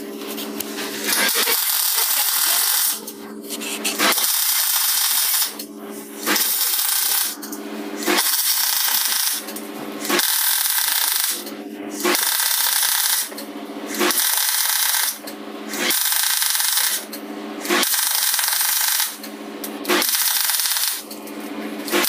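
MIG welder stitch-welding thin car floor sheet metal in short, evenly spaced bursts of crackling hiss, about one every two seconds. A low steady hum carries on between the bursts.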